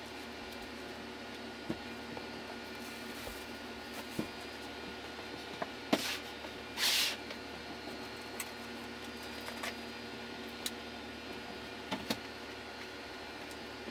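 Household items and plastic bins being moved about: scattered knocks and bumps, with two short, louder scraping noises about six and seven seconds in, over a steady room hum.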